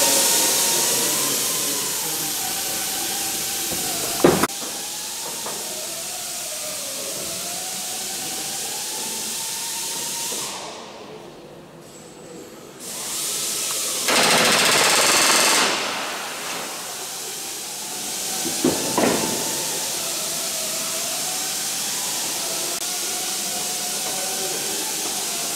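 Pneumatic rivet gun with a button snap riveting an aircraft fuselage frame: a steady air hiss, a couple of sharp single clicks, and a loud burst of rapid hammering lasting about two seconds around the middle.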